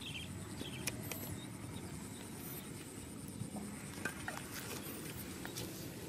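Open-field ambience: a steady low rumble of wind and handling, with a thin steady high whine, a few faint high chirps and some light clicks.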